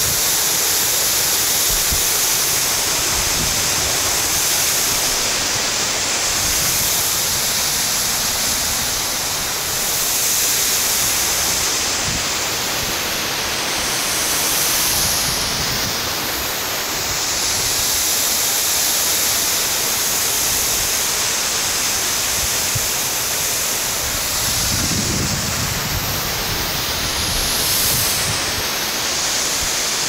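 Cautley Spout waterfall: water falling down a rocky gully, a steady rushing hiss of water.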